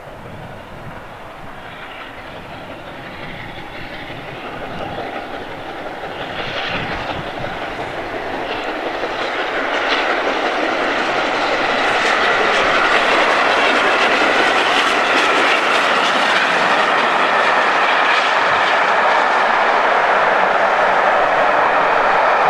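LNER A4 Pacific three-cylinder steam locomotive 60019 Bittern hauling a train of coaches at speed, approaching and passing. The sound grows steadily louder over the first half and then stays loud as the train runs by.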